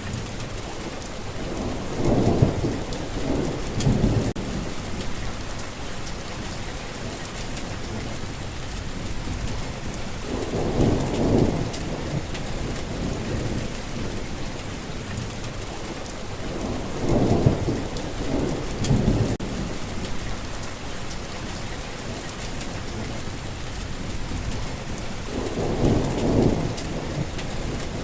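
Steady rain falling, with low rolls of thunder rumbling four times, each lasting a second or two.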